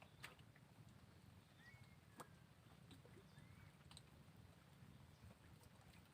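Near silence: a faint steady low hum with a few scattered faint clicks and short faint chirps.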